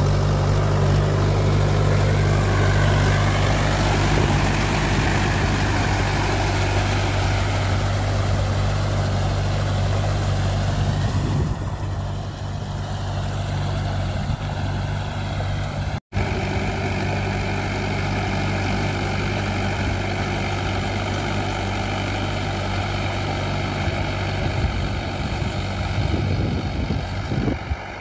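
Mahindra 575 DI tractor's four-cylinder diesel engine running steadily as it drives its cage wheels through a flooded paddy field. The engine is loud and close for the first ten seconds or so, then quieter, with a brief dropout around the middle.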